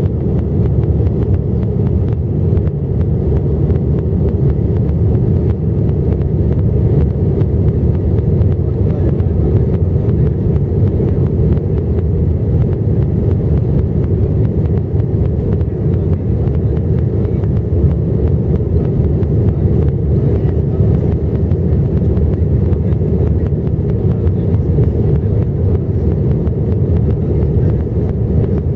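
Steady in-flight cabin noise of an Airbus A320 airliner: an even low rumble of engines and airflow heard through the fuselage at a window seat.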